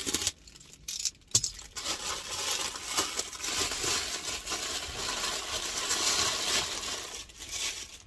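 Packaging being opened by hand: a clear plastic bag holding ratchet straps crinkling and rustling, with a few sharp clicks in the first second or so.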